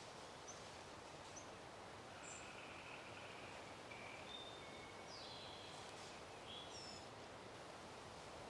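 Faint outdoor background hiss with birds chirping: a scatter of short, high whistled notes, some sliding up or down in pitch, mostly through the middle.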